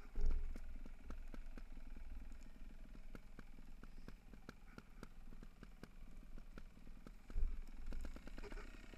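A mountain bike rolling fast down a rough dirt trail: a steady rattle of quick clicks and knocks from the bike over the ground, with low wind rumble on the microphone. There are two heavier thumps, one just after the start and one about seven and a half seconds in.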